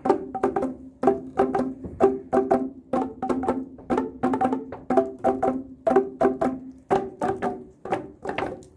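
Boomwhacker tubes struck against the stage floor, playing a repeating rhythmic pattern of short pitched notes, several strikes a second.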